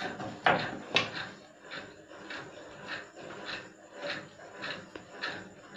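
Duster being scrubbed back and forth across a whiteboard, a run of short rubbing strokes about two to three a second, the loudest two in the first second.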